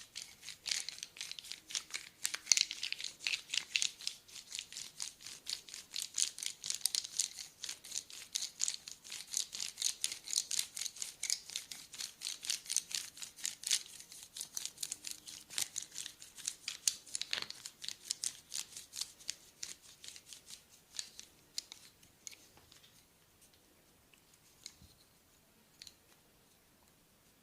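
Rapid, dry scratching strokes on skin during a back massage, several a second. They thin out to a few scattered scratches near the end.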